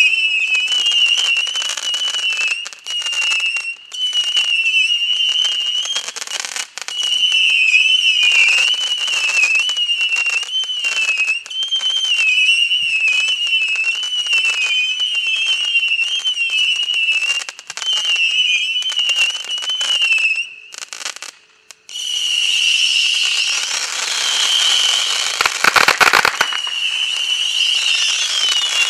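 150-shot saturn missile battery firing a rapid stream of whistling shots: a continuous wavering whistle over sizzling and crackling, with many small pops. It breaks off briefly a little after twenty seconds in, then resumes, with heavier reports about twenty-six seconds in.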